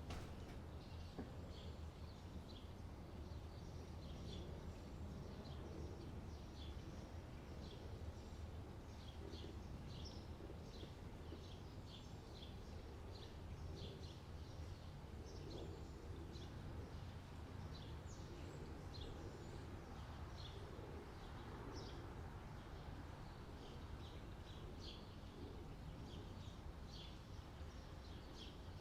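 Small birds chirping, many short high calls in quick succession, over a steady low background rumble.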